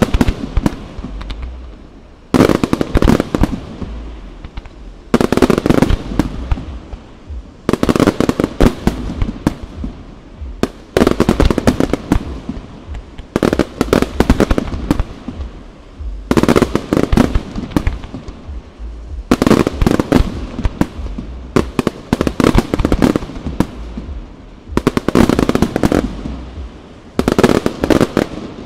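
Aerial fireworks display: volleys of sharp bangs, each a rapid cluster of reports lasting about a second with a crackling tail, coming in a steady rhythm about every two and a half to three seconds.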